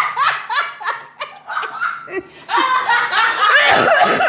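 Children laughing hard in quick, repeated bursts, which get louder and fuller about halfway through.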